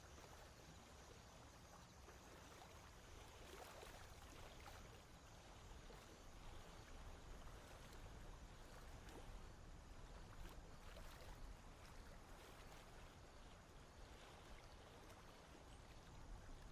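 Near silence: faint marsh background with soft water sounds and a few faint splashes or clicks.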